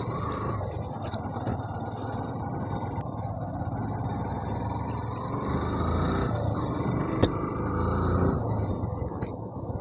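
Yamaha FZ V2 motorcycle's single-cylinder engine running on a rough off-road track, its pitch rising and falling with the throttle, with a sharp knock about seven seconds in.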